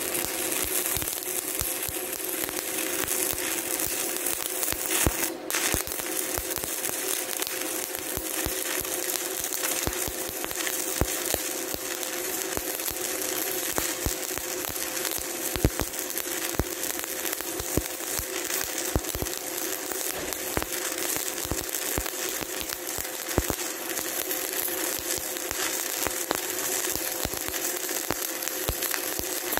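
Stick-welding arc of a 1/8-inch E7018 electrode laying a vertical-up filler pass on steel plate: a steady crackling sizzle dotted with sharp pops, over a steady tone.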